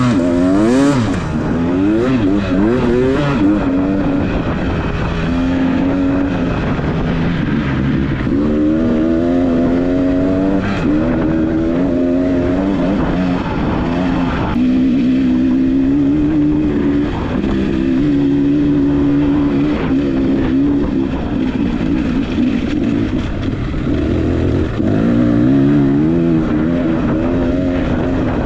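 Off-road dirt bike engine being ridden along a trail, its pitch rising and falling over and over as the rider opens and closes the throttle and shifts.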